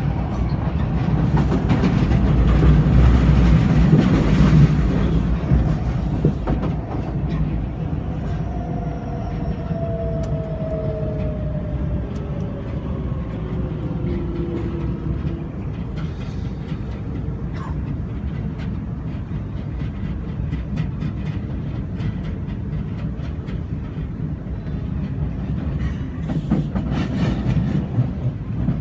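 MRT train running along an elevated track, heard from inside the carriage: a steady rumble of wheels on rails. A faint falling whine comes in the middle, and rhythmic clacking near the end.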